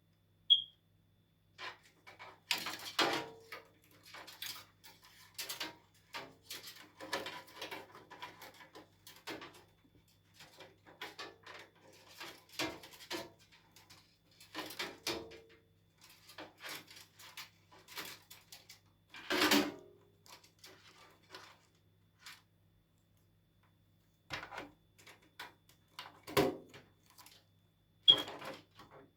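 Irregular clicks, knocks and rustles of hands handling computer parts and cables while assembling a PC, with a short high beep about half a second in and again near the end.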